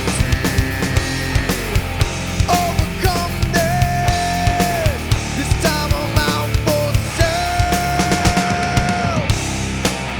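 Nu metal song: full band with drums struck steadily throughout. Twice, a long high note is held over the band and drops away at its end.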